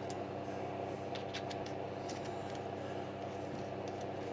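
A steady low hum with several faint, light clicks scattered through it.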